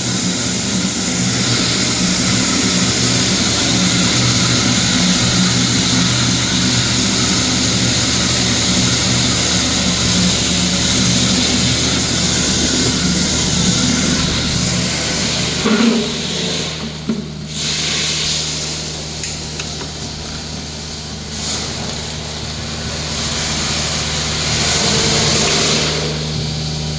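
Vacuum tanker's pump running with steady hum and rushing hiss as the suction hose draws liquid out of a cesspit. About 16 seconds in the sound changes: the hiss thins, the hum settles to a new steady note, and the hiss comes and goes unevenly.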